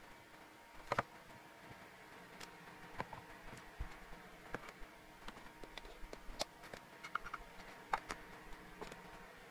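Light, scattered clicks and taps of a clear plastic storage box and small plastic container being handled, with dried hamster treat rolls set inside. The clicks come about every second or two, the sharpest about a second in and near the end.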